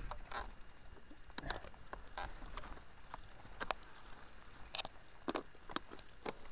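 Mountain bike rolling slowly over a rough, rutted track, rattling with scattered sharp clicks and knocks, roughly one or two a second.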